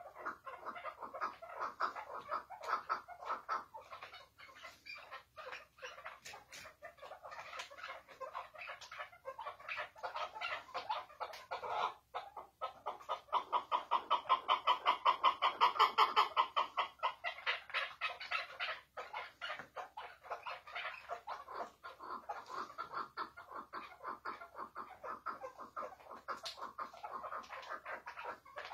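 Chukar partridge giving its chuckling 'hıngırma' call, long fast runs of short clucking notes that grow loudest and most regular about halfway through.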